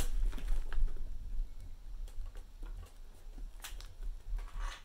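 Scissors and a plastic mail package being handled while it is cut open: a few soft clicks and rustles over a low rumble.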